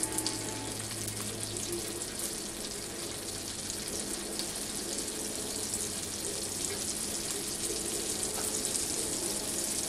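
A pat of butter melting on a hot griddle, sizzling with a steady frying hiss and faint crackles that grows slightly louder towards the end.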